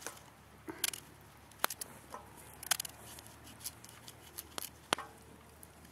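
Knife cutting chunks off a raw turnip over a steel camp pot: a handful of sharp, crisp snaps spaced irregularly, some with a brief metallic ring as pieces drop into the pot.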